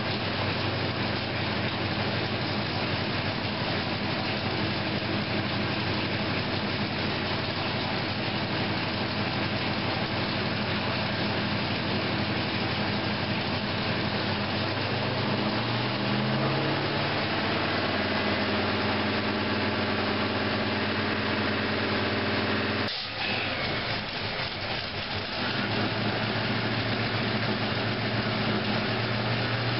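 Ford 390 FE V8 with a COMP Big Mutha Thumper camshaft idling on an engine dyno while its carburetor is tuned. The idle speed steps up a little about halfway through, and the sound briefly dips about three-quarters of the way in before steady idling resumes.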